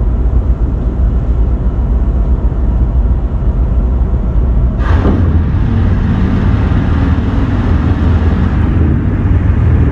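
Ship's mooring winch running to pay out a mooring line, a steady low rumble. About five seconds in there is a sudden clank, after which a steadier mechanical hum sets in.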